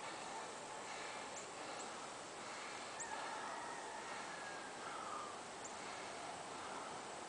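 Faint outdoor ambience: a steady hiss with a few short, high bird chirps scattered through it.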